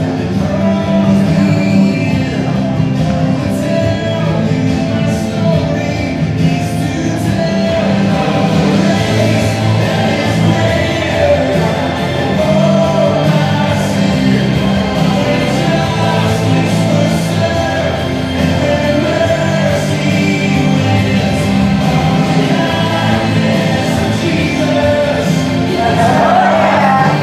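Music: a song with singing voices over sustained low accompaniment, playing without a break.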